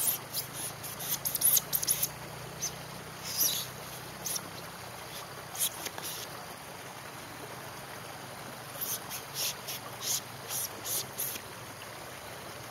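Small wood fire crackling, with scattered clusters of short, sharp snaps, over the steady rush of a small stream.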